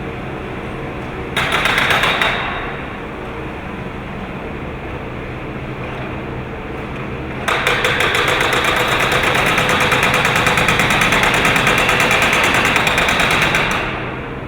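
Backhoe-mounted hydraulic breaker hammering in rapid, evenly spaced blows: a short burst about a second and a half in, then a long continuous run from about halfway until just before the end. Underneath, the backhoe's engine runs steadily.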